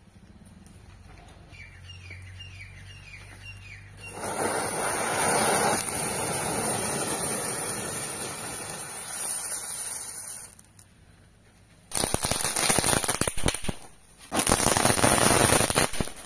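Diwali firecrackers going off: from about four seconds in, a firework burns with a steady loud hiss for about six seconds. After a short lull come two bursts of dense, rapid crackling.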